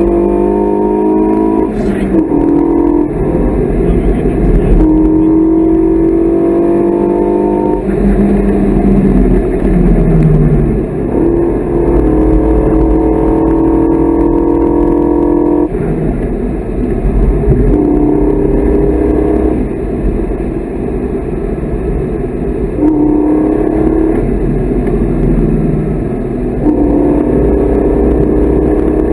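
Renault Mégane III RS Cup's turbocharged four-cylinder engine, heard from inside the cabin, pulling hard at full throttle. The pitch climbs in long rises and drops sharply at each of several upshifts, and falls off a couple of times as the car slows for corners.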